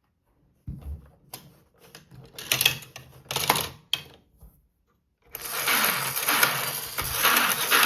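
Hard plastic clicks and knocks from a toy playset being handled and worked. About five seconds in, a small battery-powered toy motor starts up with a loud, steady whir.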